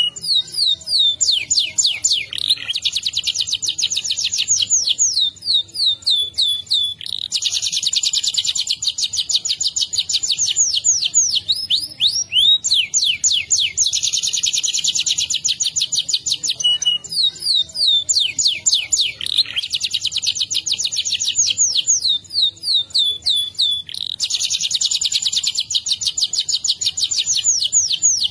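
Domestic canary singing a long, nearly unbroken rolling song: phrase after phrase of fast trills of rapidly repeated high notes, some of them sweeping down in pitch.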